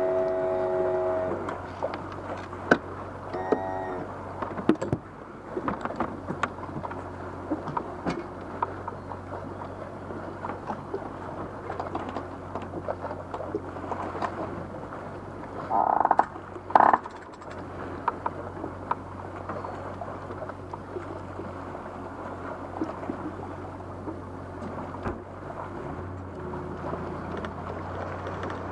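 Boat trailer being towed up a ramp: a steady low drone from the tow vehicle with frequent small knocks and rattles from the trailer and boat, and a brief louder burst of noise about halfway through. A loud held pitched sound cuts off about a second in.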